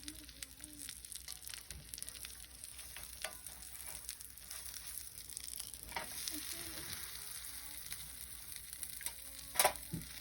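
Grilled cheese sandwich frying in butter in a small pan, a steady high sizzle, with a few light clicks and one sharp click near the end.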